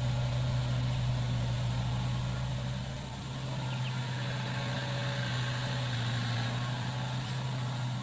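Mini excavator's diesel engine running at a steady pitch with a deep, even hum while the machine works.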